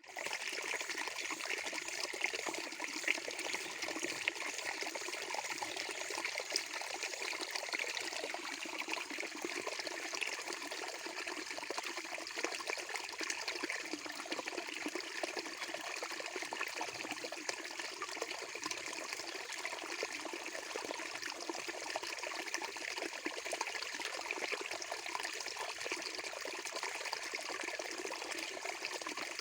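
Running water trickling and splashing in a steady, unbroken flow.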